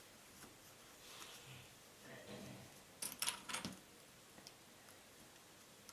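Hands handling cloth and a fabric bag strap: soft fabric rustling, then a brief cluster of light clicks and rustles about three seconds in.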